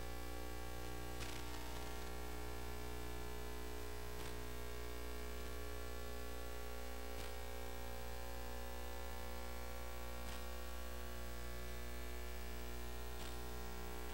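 Steady electrical mains hum with hiss, with a few faint ticks every few seconds.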